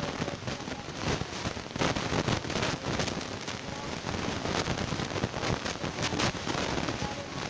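Crackling and clicking of thin plastic cups being handled close to the microphone, a dense run of small clicks throughout.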